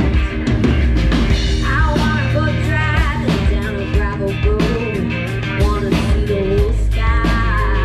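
Live rock band playing: drums keeping a steady beat under electric guitars and bass, loud throughout.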